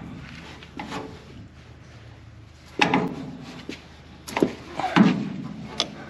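A 3/4-inch wrench on the jam nuts of a baler's stuffer trip arm adjusting rod, giving a handful of irregular knocks and clinks as the nuts are worked loose.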